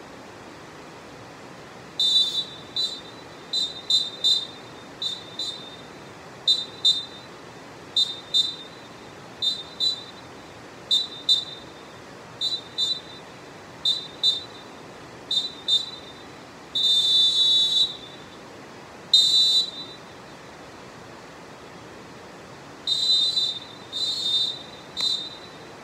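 Molten Dolfin Pro pealess referee whistle blown in many short, sharp blasts, singly and in quick pairs. Next comes one long blast of about a second and another shorter one, then a pause of a few seconds and three more blasts near the end. Each blast is a single high, steady note.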